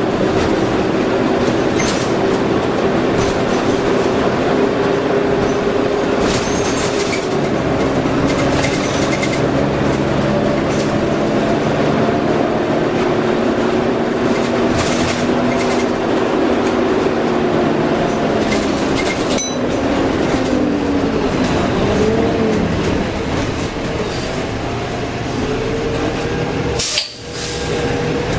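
Cummins M11 inline-six diesel of a Dennis Dragon double-decker bus running under way through its Voith DIWA 863.3 automatic gearbox, heard from beside the radiator. Several tones in the engine and driveline note slowly slide in pitch, with a brief break about two-thirds in and a sharper dip in loudness near the end.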